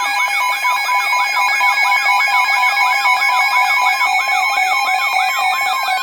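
Electronic emergency alert tones between weather warnings: several steady tones layered with a fast wailing sweep that rises and falls about two to three times a second. Near the end, one of the tones begins to slide down in pitch.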